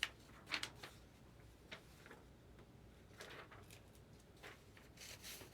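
Faint, scattered clicks and brief rustles of baseball trading cards being handled and slid against each other.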